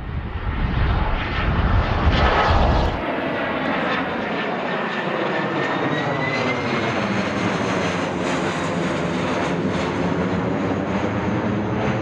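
Embraer KC-390's twin turbofan engines as the jet flies past: loud, steady jet noise with sweeping tones and a whine that slides up in pitch midway. The deep low rumble drops away abruptly about three seconds in.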